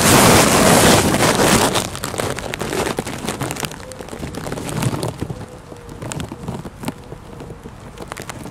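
A deep, loud breath drawn in close to the microphone for about the first two seconds, then a long, much quieter breath out: a deep thoracic inhalation followed by a slow exhalation in a Pilates breathing exercise.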